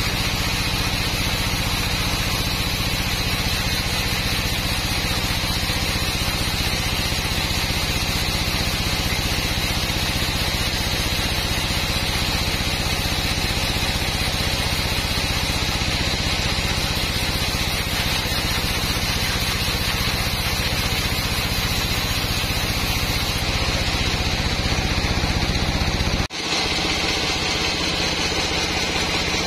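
Band sawmill running steadily, its blade cutting lengthwise through a squared hardwood log with a constant machine drone. The sound drops out for an instant near the end and then carries on the same.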